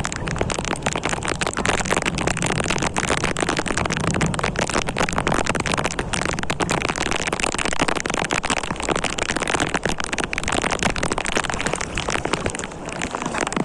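Steady rain falling: a dense, unbroken patter of drops.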